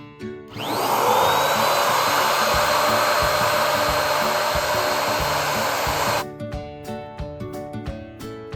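Electric balloon inflator switched on about half a second in: its motor whine rises quickly and then holds steady under a loud rush of air. It cuts off suddenly after about five and a half seconds, leaving background music with a beat.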